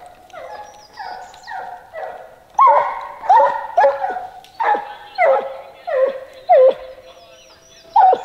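Hunting hounds barking in a string of yelps, each starting sharply and dropping in pitch. The barks are soft at first and turn loud about two and a half seconds in, coming roughly one every three-quarters of a second.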